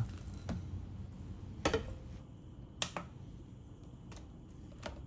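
A few light clicks and knocks, the strongest about one and three-quarter seconds in, as a plastic mixing bowl is handled and set down on a digital kitchen scale.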